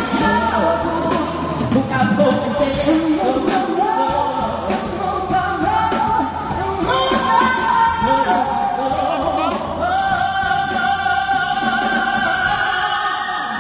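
A live pop band with female vocalists singing into microphones, amplified through the PA of a large hall. Long sung notes are held in the last few seconds.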